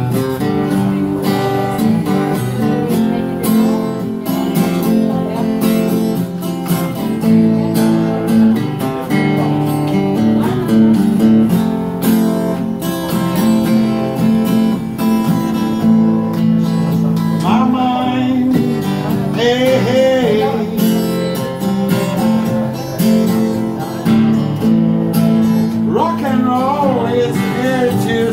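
Acoustic guitar strummed in a steady rhythm, chords ringing continuously. A voice comes in briefly a few times over it, a little past halfway and near the end.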